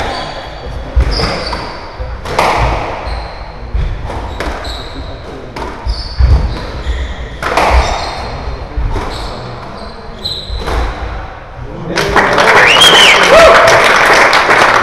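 Squash rally: the ball cracks off rackets and walls roughly once a second, with shoes squeaking on the wooden court floor. About twelve seconds in the rally ends and the crowd breaks into loud applause and shouts.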